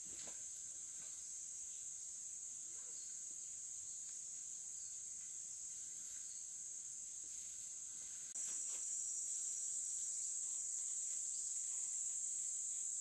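Steady, high-pitched drone of a chorus of insects, shrill and unbroken, becoming louder a little past halfway.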